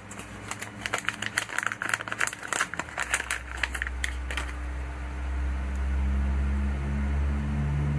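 Plastic packet of 2 mm lumo green tubing crinkling and clicking as it is opened and the coiled tubing is pulled out, a quick run of crackles through the first four seconds or so. A low steady hum builds up behind it from about three seconds in and cuts off suddenly at the end.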